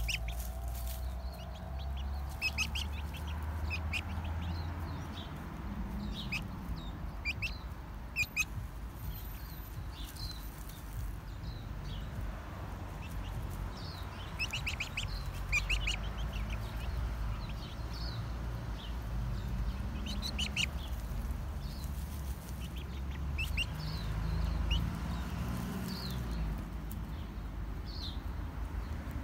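Young chickens peeping, short high calls coming in little clusters every second or two, over a steady low rumble. Now and then a brief rustle as they scratch and roll in dry leaves and earth.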